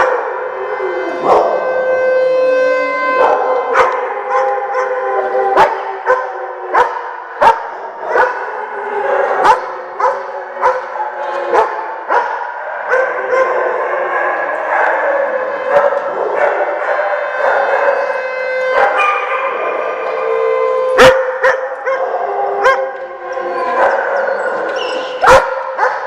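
A group of dogs barking, yipping and howling, with many sharp single barks, over the steady wail of an outdoor warning siren being tested; the dogs are howling along with the siren.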